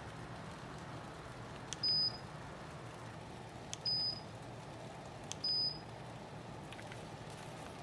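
BREEZE solar air circulation fan running with a steady soft whoosh and low hum, while its control panel gives three short, high beeps about two seconds apart as its mode button is pressed.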